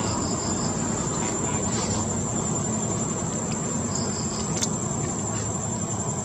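Insects droning with one steady high-pitched tone, and twice a short run of three or four quick chirps. Under it is a steady low rumble.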